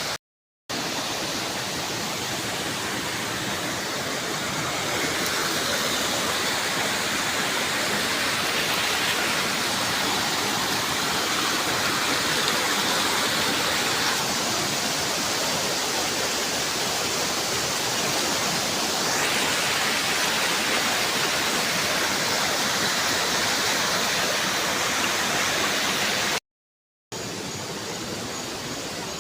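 Steady rushing of a waterfall, broken twice by a brief dead silence where the recording cuts.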